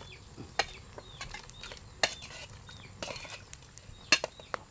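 A metal spoon scraping and clinking on a metal tray as chopped offal is pushed off it into a pot of boiling water. There are several sharp clinks, the loudest a little after four seconds in.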